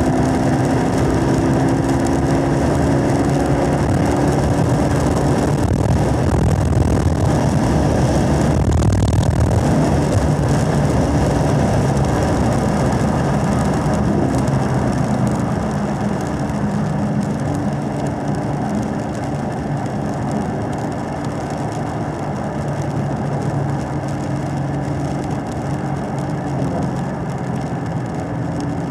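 2017 Camaro SS 1LE's 6.2-litre V8 heard from inside the cabin, pulling in fourth gear with its pitch rising. About halfway through it lifts off and drops to lower revs, running more quietly in third gear through a corner. A steady hiss from the wet tyres runs underneath.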